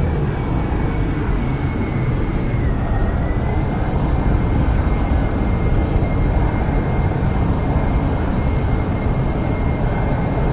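Jet aircraft engines running, a steady roar under a high whine that dips slightly in pitch a few seconds in.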